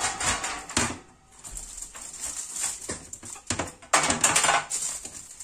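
Aluminium foil crinkling and rustling as a foil-wrapped fish is handled and set into a metal rack, with light clicks and knocks. The noise comes in bursts: loud at first, softer in the middle, then loud again about four seconds in.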